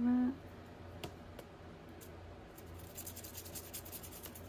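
Quick run of scratchy strokes on paper, about eight a second, in the second half, with a single light tap about a second in: white paint being worked onto a collage page.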